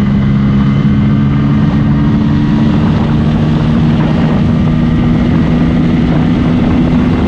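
Bajaj Pulsar N160's single-cylinder engine pulling hard in fourth gear at high speed, with a loud, steady note that climbs only slowly as the bike passes 100 km/h. Wind rushes over the microphone underneath.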